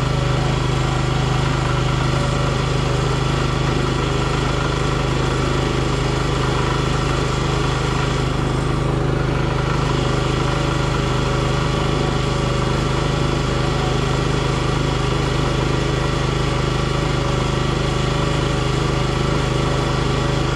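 NorthStar 37-ton log splitter's gasoline engine running at a steady speed, holding an even pitch throughout.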